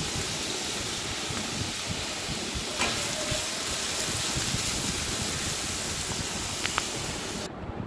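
Thin-cut potato strips sizzling steadily in hot oil in a non-stick kadai as they fry. A spatula knocks against the pan about three seconds in, with a couple of faint ticks later, and the hiss drops away suddenly near the end.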